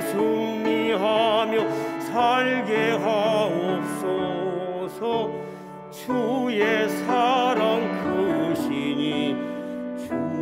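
Solo male baritone-tenor singing a Korean hymn with a wide vibrato over sustained instrumental accompaniment, with a short breath between phrases about five seconds in.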